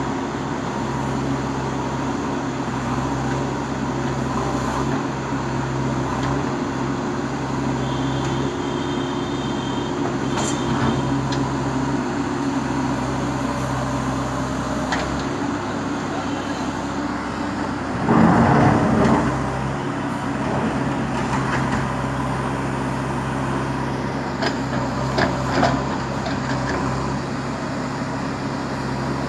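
Bulldozer's diesel engine running steadily under load, with a short, louder rush of noise about eighteen seconds in.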